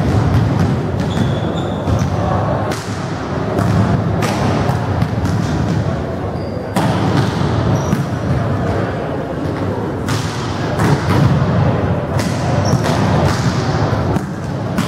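Volleyballs being spiked and slapping onto a wooden gym floor during an attack warm-up: sharp hits at irregular intervals, over a steady din of voices.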